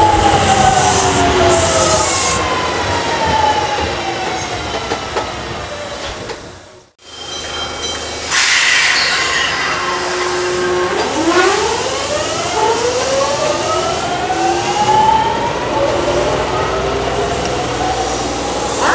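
Kintetsu 3200 series train's early Mitsubishi GTO-VVVF inverter. First a falling whine of several tones as the train brakes. After a brief break, a steady tone gives way to a stepped, rising whine as the train pulls away.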